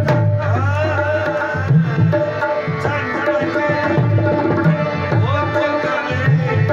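Live folk music: a man singing with gliding, held notes over a harmonium, with a dholak drum beating a steady rhythm underneath.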